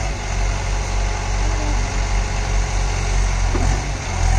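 Diesel engine of a Bull Challenger CH 76 backhoe loader running steadily under load while the backhoe arm digs and lifts a bucket of sand.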